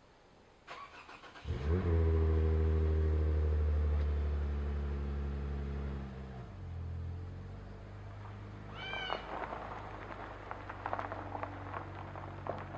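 A Ford Super Duty pickup's engine cranks and fires about a second and a half in, then runs at a fast idle that drops to a lower idle about six seconds in. A brief high squeal that rises and falls comes near the middle, and light clicks and rattles follow.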